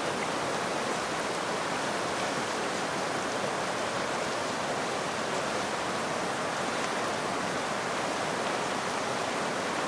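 Shallow, stony river flowing, a steady rush of water over rocks.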